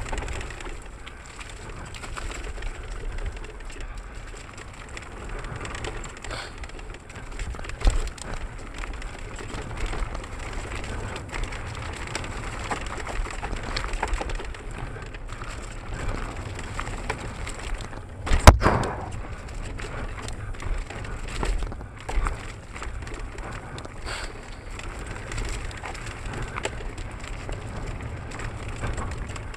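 Mountain bike descending a dirt forest trail at speed: tyres rolling on dirt and the bike rattling, over a steady low rumble of wind on the action camera's microphone. One loud knock comes about eighteen seconds in, and a smaller one around eight seconds in.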